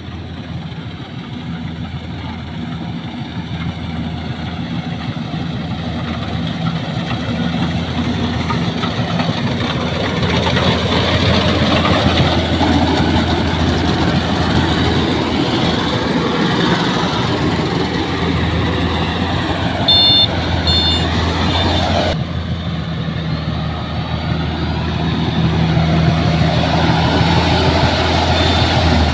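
Rice combine harvester running steadily, its engine and cutting and threshing machinery making a continuous mechanical noise that grows louder partway through. A few short high beeps come about two-thirds of the way in, and the sound changes abruptly soon after.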